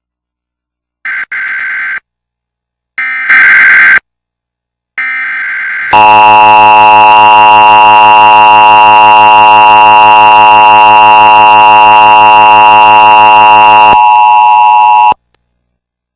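Emergency Alert System broadcast alert: three short bursts of screechy digital header data, one about every two seconds, then the loud, steady two-tone EAS attention signal. The attention tone holds for about eight seconds, drops slightly in level, and cuts off abruptly about fifteen seconds in.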